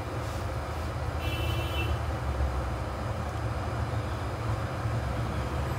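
Hot air rework station blowing steadily on a phone motherboard, a continuous airy rush over a low rumble, heating the glued CPU to loosen it for removal.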